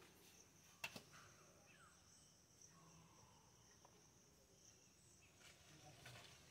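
Faint, steady high-pitched chirring of insects, with two sharp clicks about a second in and a brief scuffle near the end.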